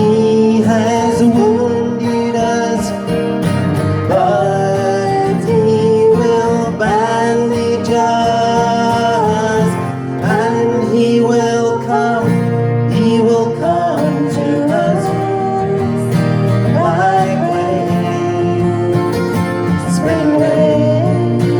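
Worship song music led by guitar, a melody gliding over steady accompaniment.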